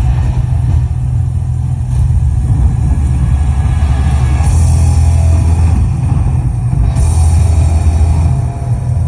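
Hard rock band playing live through a loud PA, with a heavy, distorted low end and cymbal crashes washing in from about halfway through.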